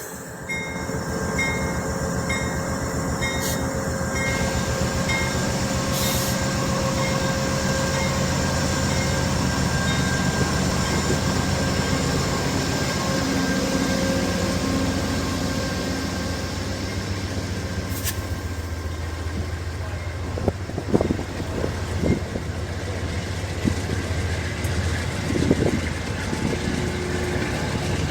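A train rolling past close by: a steady diesel locomotive rumble, then from about twenty seconds in, cars passing with sharp clicks and squeals of steel wheels on the rails.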